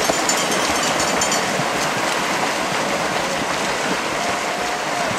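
Many open-water swimmers splashing together, arms and kicks churning the lake surface into a steady mass of splashing water.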